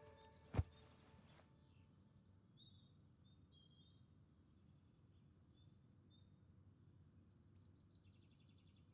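Quiet background with faint bird chirps scattered throughout, after a guitar chord rings out and fades in the first second or so. A single sharp thump, the loudest sound, comes just over half a second in.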